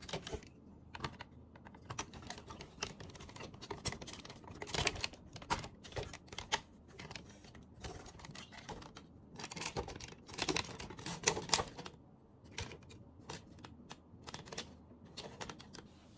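Hard plastic parts of a Konami Sazer-X DX Magna Beet robot toy clicking as hands move and handle it: a rapid, irregular run of small clicks.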